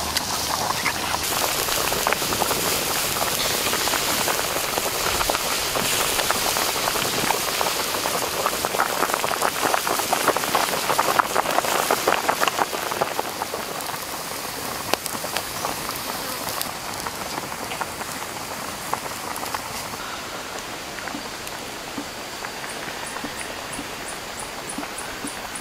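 A wok of red broth with pig leg pieces boiling hard over an open fire: a dense bubbling and popping hiss. It eases to a quieter hiss about halfway through.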